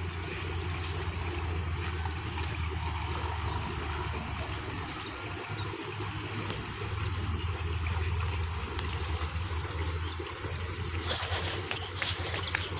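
Steady rushing of water flowing along an irrigation canal. Near the end come a few short, loud rustling noises.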